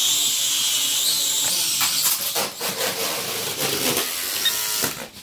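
Syma X5HW toy quadcopter's four small brushed motors and propellers whining. The pitch jumps up at the start as it throttles up, then wavers. A run of sharp clicks and knocks comes in the second half, and the whine cuts off suddenly near the end.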